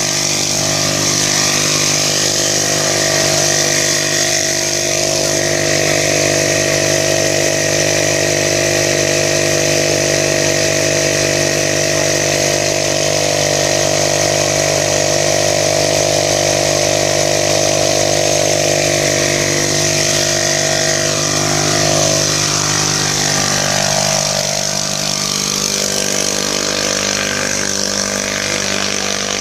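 Small engine-driven water pump running steadily at constant speed, pumping water out of a pond through a large hose. A little fainter near the end.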